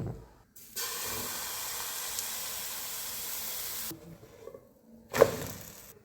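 A steady hissing rush that starts and stops abruptly, lasting about three seconds, followed about a second later by a single sharp knock.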